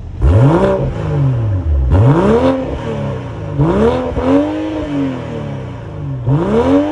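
2022 BMW M340i's 3.0-litre twin-turbo straight-six revved four times through its standard (non-M Performance) exhaust, each rev climbing and falling back, the last still falling at the end.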